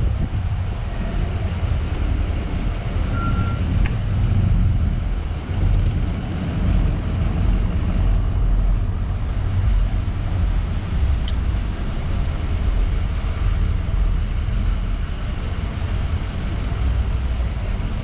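City street ambience dominated by a loud, uneven low rumble, with general urban and traffic noise behind it.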